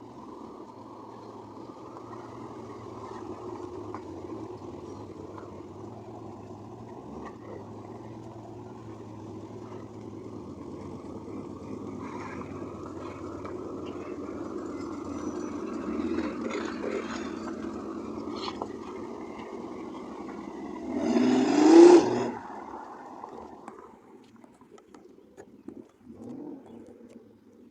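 1987 Corvette C4's 5.7-litre L98 V8 running steadily on its newly installed fuel pump after two years of sitting. It is revved hard once briefly about 21 seconds in, and then the engine sound drops away a couple of seconds later.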